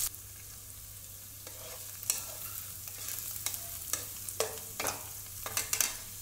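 Chopped onions sizzling in hot oil in a non-stick kadai, with a silicone spatula scraping and stirring them against the pan in a series of short strokes from about a second and a half in.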